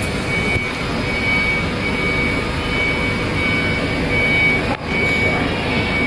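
Triple-twist pair twisting machine for LAN cable running at speed behind its perforated steel guard: a loud, steady mechanical rush with a thin high whine that comes and goes.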